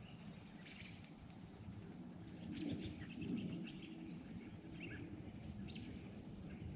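Small songbirds chirping in short, scattered calls, with a cluster of chirps around the middle, over a low steady outdoor rumble.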